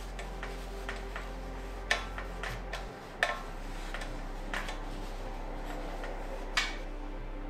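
Irregular light clicks and metallic taps from hands working on bicycle parts with tools, a dozen or so scattered through, the sharpest about two, three and six and a half seconds in.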